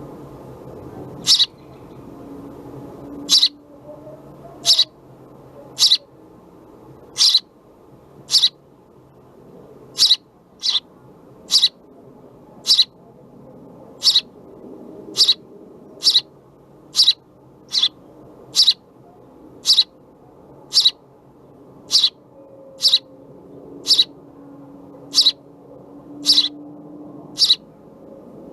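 House sparrow chirping, a single loud, short chirp about once a second, repeated some two dozen times, over a faint low background noise.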